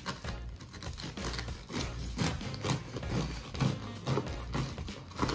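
Serrated bread knife sawing back and forth through the crisp crust of a freshly baked whole-wheat loaf on a wooden cutting board, a rasping stroke about twice a second.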